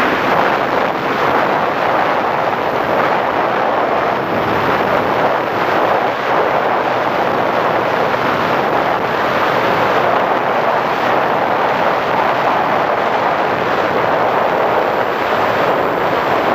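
Steady rush of airflow and propeller noise on the onboard microphone of a flying radio-controlled P-51 Mustang model.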